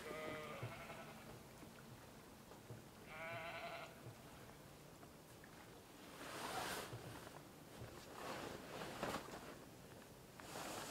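A sheep bleats twice: a short call at the start and a wavering one about three seconds in. From about six seconds a plastic tarpaulin rustles and crinkles in bursts as it is dragged over the boat's cabin.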